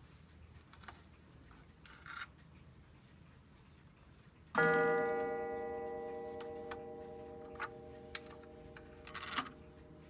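Sessions mantel clock striking once on its gong about four and a half seconds in, the single half-hour strike as the minute hand is turned past the half. The note rings on and slowly dies away. Faint ticks before it, and a few light clicks from the hands being turned near the end.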